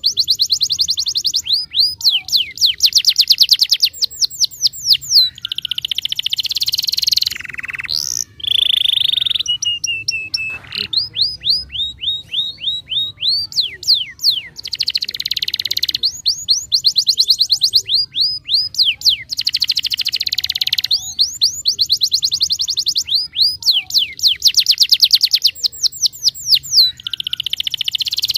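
Domestic canary singing a long, continuous song made of trills: runs of fast repeated high notes, some very dense and buzzy, others slower sweeping notes, with the pattern changing every second or two. This is the full, steady singing ('gacor') used to prompt young canaries to sing.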